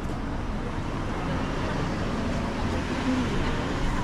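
City street ambience: a steady hum of road traffic, with faint voices of passers-by.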